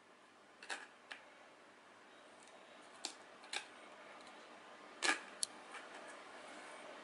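Coins clinking: three pairs of short, sharp metallic clicks about half a second apart, the loudest pair about five seconds in, as coins knock against each other and the phone.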